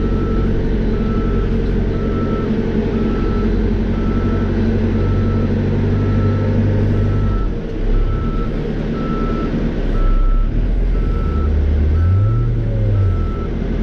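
Cat 430E backhoe loader's diesel engine running with its reversing alarm beeping steadily about once a second. The engine's steady note changes about halfway through, and it revs up briefly, then settles, near the end.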